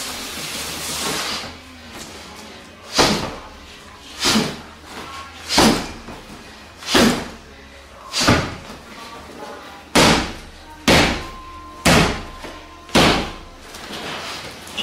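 Heavy thuds of strikes landing on a padded training bag lying on the floor, about nine blows, first roughly every second and a half, then about one a second; a brief rustle of the bag being handled comes before them.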